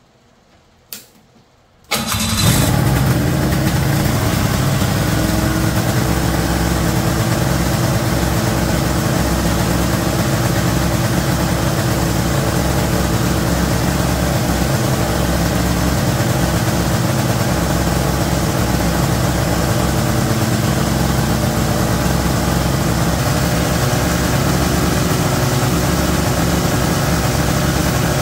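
1992 Ski-Doo Mach 1 snowmobile's two-stroke twin engine catching about two seconds in and then running steadily at a fast idle. The idle adjustment screw does not bring the speed down, which the owner puts down to carburetor slides not closing all the way.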